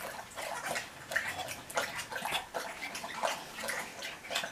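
Light, irregular clicks and taps of a small clear plastic enclosure and its door panel being handled and set down.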